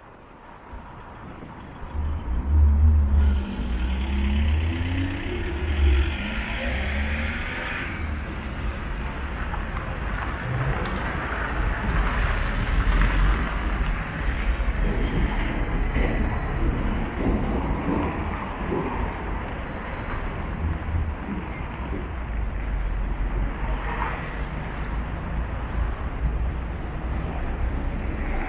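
Busy road traffic: cars and a truck driving past close by, engines running with tyre noise on the road. About two seconds in, the noise rises sharply from a quieter start, then stays steady.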